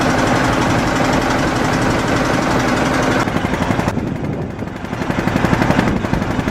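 Boat engine running with a fast, even knocking beat, steady throughout. A hiss over it fades out about three to four seconds in.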